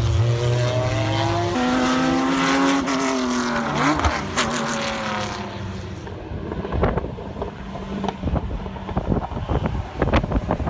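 Race car engines passing on the circuit, shifting down and then revving up again, fading after about five seconds. Wind then buffets the microphone for the rest.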